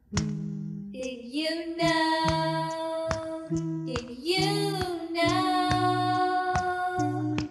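Children's song: a female voice singing long held notes over plucked acoustic guitar and low bass notes in a steady rhythm.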